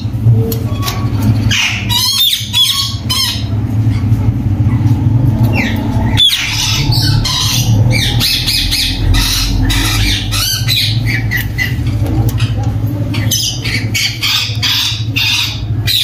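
Parrots squawking, in bursts of short, sharp calls that come and go, over a steady low hum.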